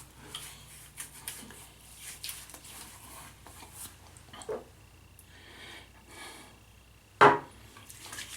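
Quiet handling sounds while post-shave balm is applied: small clicks and soft rubbing, with one loud thump about seven seconds in.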